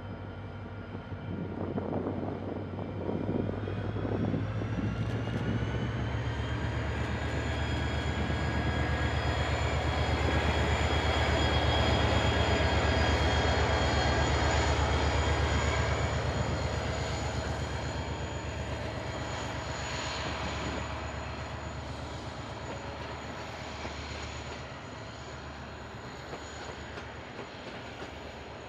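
KiwiRail DFB class diesel locomotives and their train running past at close range: a low engine drone under a high whine. The whine rises in pitch a few seconds in and then holds steady. The sound builds to its loudest about twelve seconds in and fades over the last ten seconds.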